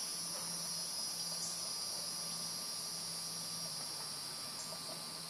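Insects chirring in a steady, high-pitched chorus.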